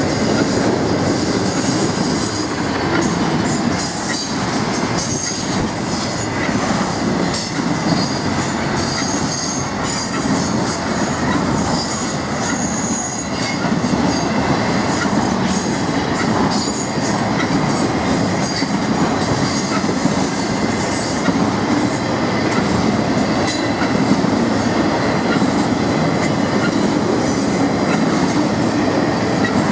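Intermodal freight train's cars rolling past on the rails: a steady rumble of wheels on track, with short high wheel squeals now and then.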